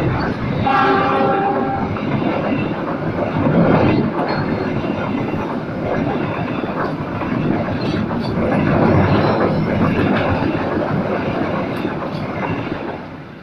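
Passenger coaches of an Indonesian express train passing close by at speed: a steady rumble of wheels on rail with repeated clattering, and a brief pitched tone about a second in. The noise fades near the end as the last coach goes by.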